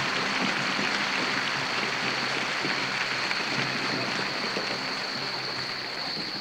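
Audience applause, a dense steady patter that slowly fades.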